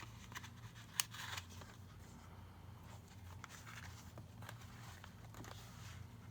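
Paper pages of a spiral notebook being handled and turned: soft rustles and light clicks, with one sharper click about a second in, over a faint steady low hum.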